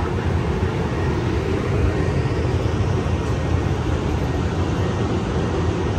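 Steady low rumble of an Amtrak Capitol Corridor passenger train idling at a station platform, its diesel locomotive running while the train stands.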